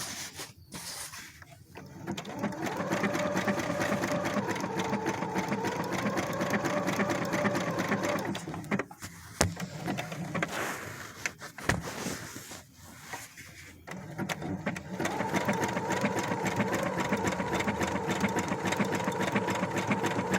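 Brother SQ9285 sewing machine sewing a dense zigzag (satin) embroidery stitch: a motor whine over rapid needle strokes. It runs for about six seconds, stops for several seconds with a couple of sharp clicks, then runs steadily again.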